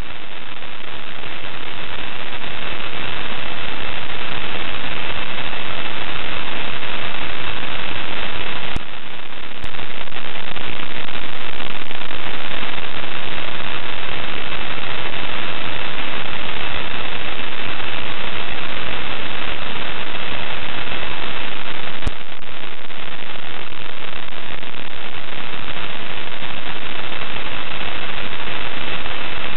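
Loud, steady hiss of radio static on the space station's air-to-ground voice channel between transmissions, with a faint high whine running through it. Two brief clicks, each with a momentary drop in the hiss, come about nine and about twenty-two seconds in.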